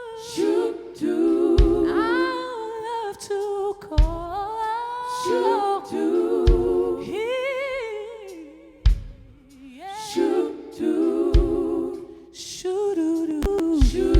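Gospel vocal group singing in close harmony with wordless, hummed-sounding phrases and vibrato, mostly unaccompanied, over a low thump about every two and a half seconds.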